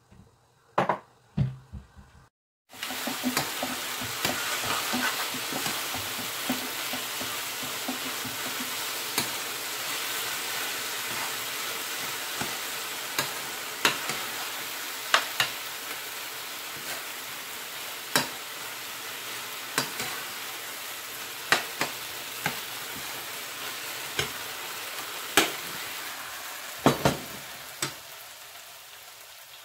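Food sizzling in a Copper Chef frying pan, with the sharp clicks of a utensil stirring against the pan every second or two. The sizzle dies down near the end.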